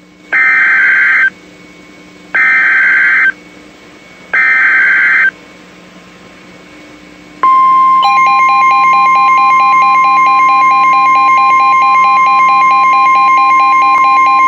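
Emergency Alert System header: three short, harsh data-tone bursts about two seconds apart, then a long, loud, steady single-pitch attention tone with a rapidly pulsing beep layered over it from about a second after it starts, signalling an incoming warning.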